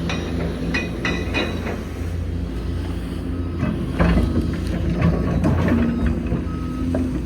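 Hitachi Zaxis 490LCH excavator's diesel engine running steadily with a thin hydraulic whine, broken by sharp metallic clanks and knocks. A ringing cluster comes about a second in, more knocks around four seconds.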